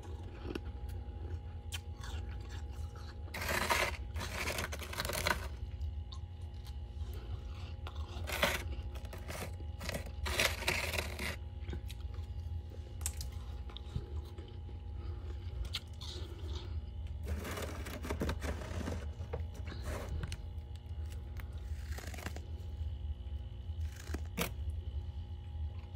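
Freezer frost crunching in several irregular bouts as it is scooped up and chewed, over a steady low hum.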